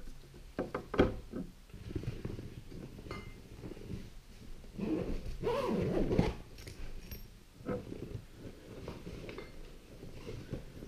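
Soft-sided cooler bags being handled while a glass bottle is packed into one: a few sharp clicks and knocks about a second in, then rustling and scraping of the bags' fabric and zipper.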